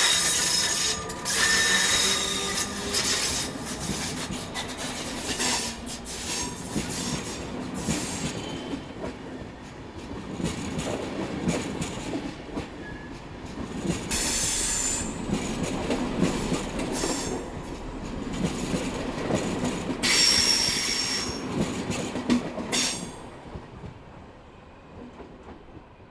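Train wheels on track, rattling and clacking over rail joints and points, with the wheels squealing several times. The sound dies away near the end.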